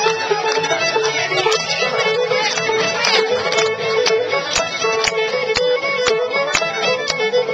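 Live fiddle-led contra dance band playing a dance tune, with a steady beat about twice a second.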